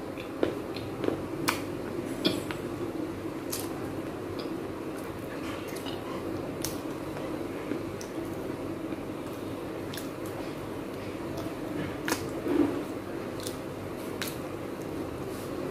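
Crunching and chewing of bits of small baked clay pots: scattered sharp cracks and clicks, several in the first couple of seconds and a louder cluster near the end, over a steady low background hum.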